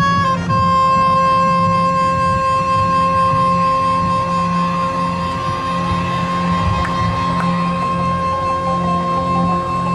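A marching band plays a piece in concert formation, with brass, woodwinds, electric guitar and synthesizer. A long high note is held throughout, shifting just after the start, over a pulsing low part.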